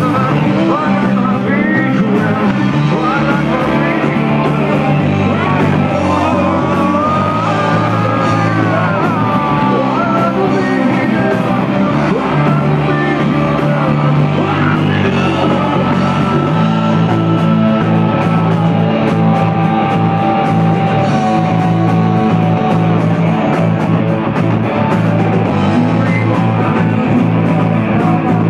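Live rock band playing loud, with drums and a singer's shouted and sung vocal line over the music.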